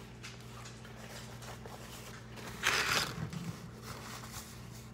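Handling noise on a table, with faint clicks and one short scraping rustle a little past halfway, over a steady low hum.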